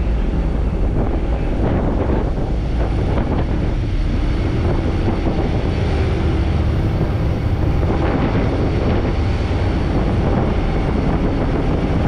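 Steady low drone of a ferry's engines under way, with wind buffeting the microphone.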